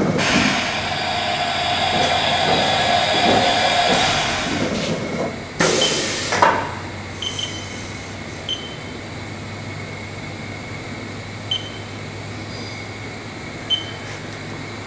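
Haas VF5's 30-tool side-mount automatic tool changer carrying out a CAT 50 tool change. It whirs for about five seconds, then clunks loudly a couple of times about six seconds in. After that the machine hums steadily, with a few light clicks.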